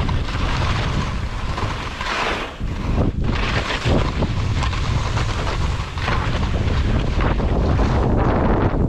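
Wind rushing over a skier's microphone during a fast downhill run, mixed with skis hissing and scraping through snow. The noise swells and eases every second or so.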